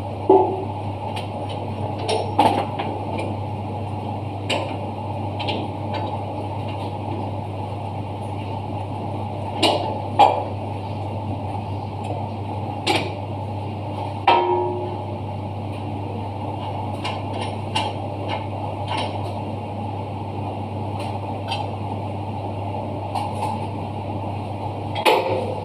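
Hand tools clinking and knocking on the metal fittings of an Italclean Liberty 200 dry-cleaning machine under repair: scattered sharp clicks, a few louder, over a steady low hum, with several clicks close together near the end.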